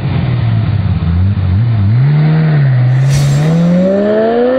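A car engine revving, its note low and wavering at first, then climbing steadily from about three seconds in as it accelerates. A brief hissing whoosh comes just before the climb.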